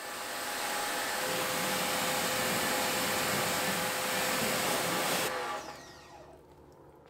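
Pressure washer spraying water onto a car's paint, its motor running with a steady hum under the hiss of the spray. About five seconds in, the spray cuts off suddenly and the motor winds down and fades.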